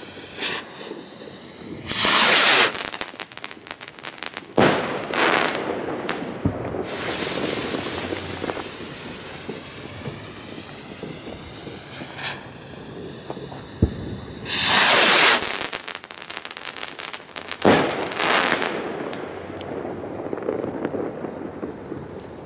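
Two Funke Kometenschauer 20-gram firework rockets launching one after the other. Each goes up with a loud whoosh, bursts with a bang about two seconds later, then crackles.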